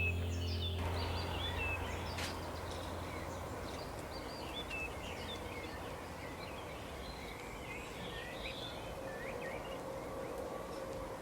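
Many small songbirds chirping and twittering together over a steady background hiss of forest ambience. A low music drone fades out about a second in.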